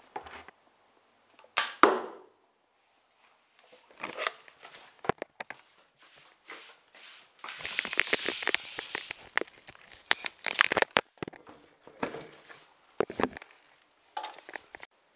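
Sharp snaps, knocks and clatters, the loudest a double snap about two seconds in, with a stretch of rustling handling noise in the middle: a homemade chopstick crossbow and its chopstick bolt, with a plastic bottle target, being handled and shot on a stone floor.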